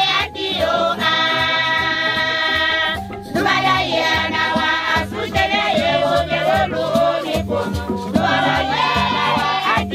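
A church choir singing in harmony, long held phrases over a steady percussion beat.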